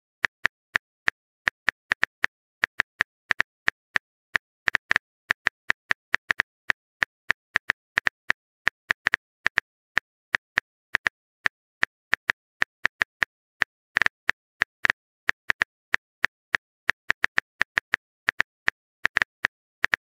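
Phone keyboard typing sound effect: a long run of short, sharp taps at an uneven pace, about three or four a second.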